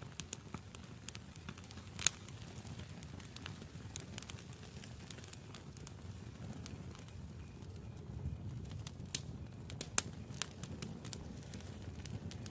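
Burning wood in a campfire crackling and popping irregularly over a soft low rumble of the flames, with one sharp pop about two seconds in and a busier run of pops near the end.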